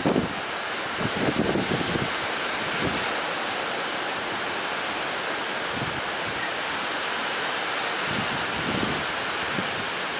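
Sea waves and strong wind: a steady wash of surf and wind noise, with gusts buffeting the microphone in the first couple of seconds.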